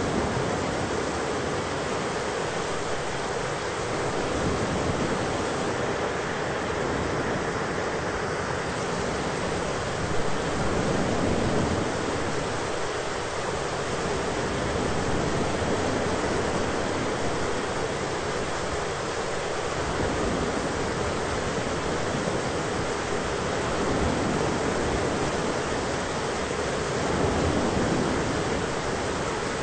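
Thunderstorm ambience: a steady, dense rain-like hiss, with a deeper low layer that swells and eases every few seconds.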